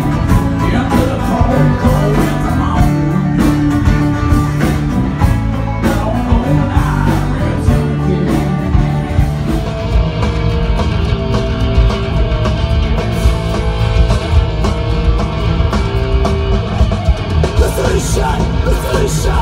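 Live rock band music, loud through a festival PA, with guitars, drums and singing; about halfway through it cuts abruptly to a different, heavier band.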